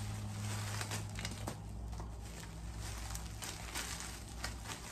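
Plastic wrapping crinkling and rustling with small scattered crackles as glass tea saucers are unwrapped by hand.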